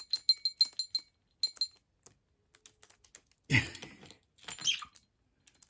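A small metal bell toy jingling in a quick run of bright strikes for about the first second and a half as a budgerigar plays with it, with light clicks throughout. About three and a half seconds in comes a louder knock or rattle, followed by a short sound falling in pitch.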